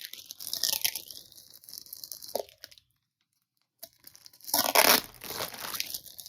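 Plastic mailing bag crinkling and packing tape being pulled and torn off by hand, in rough irregular bursts with a short pause in the middle and the loudest rip about four and a half seconds in.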